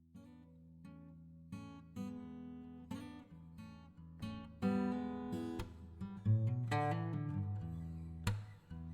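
Background music: acoustic guitar picking and strumming, growing louder.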